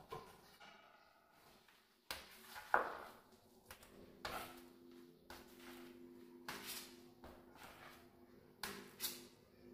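Metal putty knife scraping and knocking against a tin of polyester mastic as the paste is scooped out: a series of short clacks and scrapes, the loudest about three seconds in. A faint steady hum sits underneath from about four seconds in.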